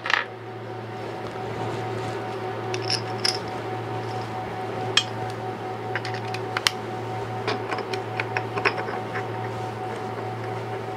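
Scattered small metal clicks and taps of socket head cap screws and a hex key or screwdriver against an aluminium spacer block as it is screwed onto the CNC's Z-axis carriage. A steady mechanical hum runs underneath throughout.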